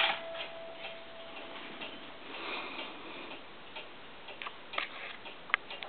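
Large hunter-style cuckoo clock ticking, about two ticks a second, while the last note of its music box rings away over the first two seconds. A few sharper, louder clicks come near the end.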